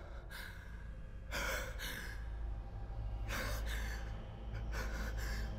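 An actor's sharp breaths or gasps, heard as several short hissing bursts a second or so apart, over a low steady hum.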